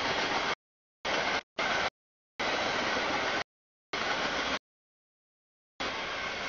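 Freight train rolling past a grade crossing: a steady rushing noise of wheels on the rails. It is heard in six choppy fragments of half a second to a second each, cutting in and out abruptly with dead silence between.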